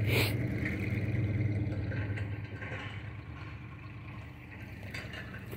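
Engine idling steadily with a low hum, growing gradually fainter.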